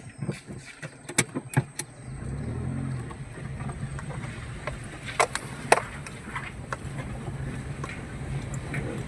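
Car engine and tyres heard from inside the cabin as the car drives slowly over a stone-paved driveway. The engine's low hum comes up about two seconds in and holds steady, with a few sharp clicks and knocks scattered through.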